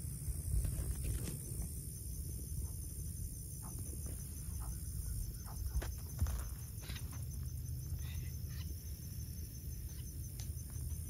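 Steady high insect chorus with a fast even pulse. Scattered footsteps and scuffs on dry ground and grass give short knocks, the sharpest about a second in and about six seconds in, over a low rumble of wind on the microphone.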